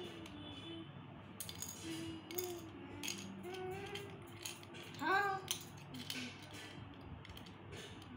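Light clicks and clinks of a die-cast Crashem toy car's snap-on body panels being handled and fitted back on by hand, over faint humming, with a short rising vocal sound about five seconds in.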